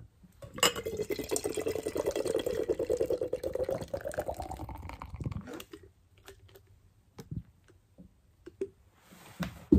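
Beer glugging out of an aluminium can into a glass, the pitch of the filling rising as the glass fills, for about five seconds. The pour then slows to faint trickles and drips.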